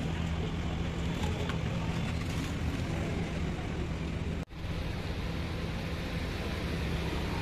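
Steady low hum under a wash of street noise, cut by a brief dropout about four and a half seconds in.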